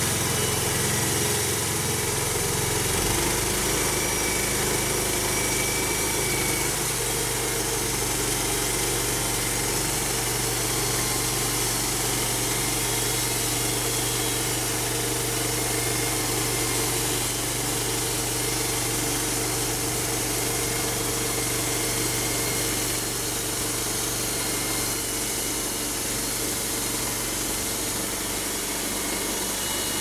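Engine of a homemade band sawmill running steadily under load while the band blade cuts lengthwise through a spruce cant, a continuous mechanical drone with no breaks.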